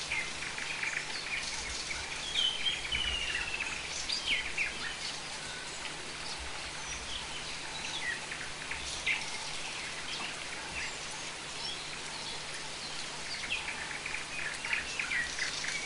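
Steady rain falling, with birds calling over it: a few whistled calls that slide down in pitch in the first few seconds, and scattered short chirps.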